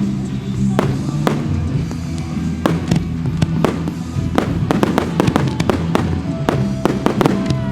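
Fireworks bursting with sharp bangs, a few at first and then several a second from about halfway in, over music with steady low notes.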